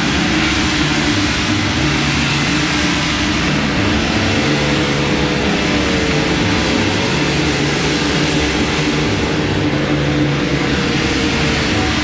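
Dense, loud ambient drone music from electric guitars and gongs: held tones over a low line that shifts notes every second or so, with a sliding tone in the middle range partway through.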